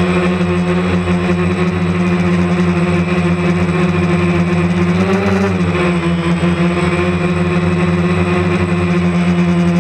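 DJI Phantom quadcopter's motors and propellers humming steadily, heard from the camera on board; about five seconds in the pitch rises briefly and falls back as the motors speed up and settle.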